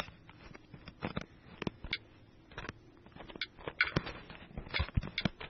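Irregular light taps and clicks of someone typing a message, a few keystrokes at a time with short pauses.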